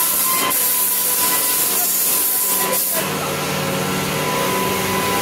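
Compressed-air blow gun hissing in three blasts as it blows chips and coolant off the work fixture of a CNC machining center. The hiss stops about three seconds in, leaving a steady factory machine hum with a few fixed tones.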